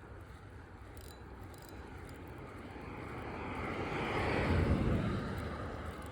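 A vehicle passing by on the road: a rushing noise that builds for about four seconds, peaks near the end, then fades.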